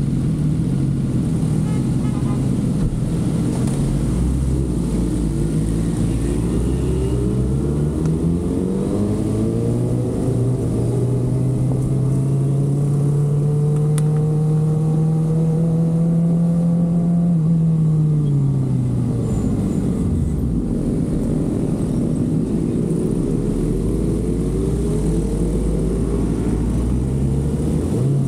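Kawasaki ZX-6R inline-four engine running as the bike rides in traffic. Its pitch is steady at first, rises as it pulls away about a third of the way in and holds, drops as it slows about two-thirds in, then rises again near the end.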